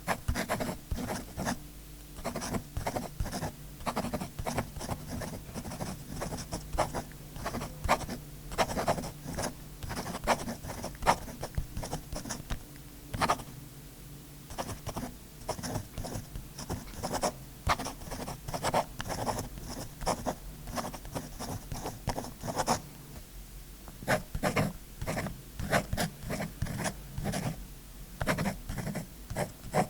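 Scribbling on paper with a writing tool: a long run of quick, irregular scratchy strokes, with a few short lulls.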